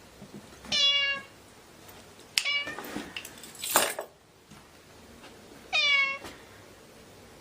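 A domestic cat meowing three times in short, high calls, each about half a second long, with a brief noisy burst between the second and third.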